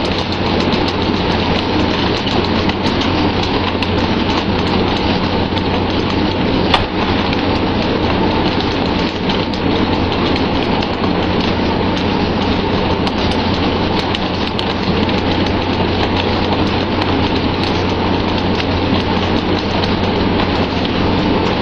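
Steady rush of sea water spraying and splashing along the side of a pole-and-line tuna fishing boat, over a constant low hum from the vessel's engine. A single sharp knock comes about seven seconds in.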